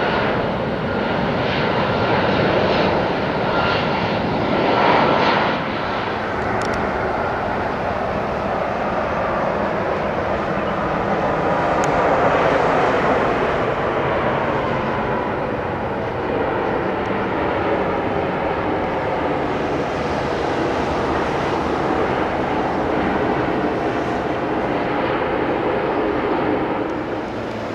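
Twin-engine jet airliners on low final approach, first a Boeing 767 and then, after a change about six seconds in, a Boeing 787. The jet engines make a steady rumble, with a whine that slowly falls in pitch as the plane passes.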